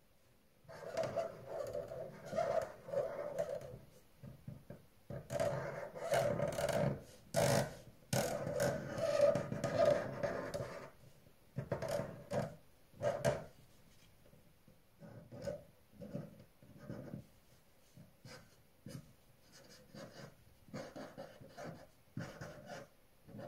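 A red pen scratching across paper on a wooden tabletop while drawing: long runs of strokes in the first half, then a string of short, separate strokes.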